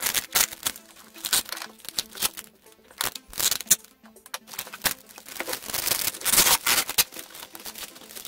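Clear plastic stretch film crinkling and tearing as it is pulled off a cardboard box, in irregular bursts with a louder stretch about two-thirds of the way through.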